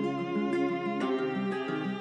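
Instrumental background music, a melody of short pitched notes.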